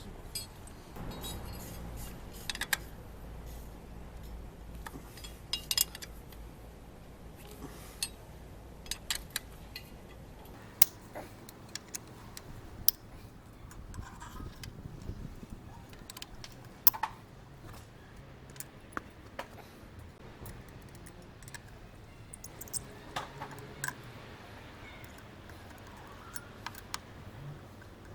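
Irregular metallic clicks and clinks of hand tools and loose bolts being handled while a motorcycle is being dismantled, with a few sharper knocks among them.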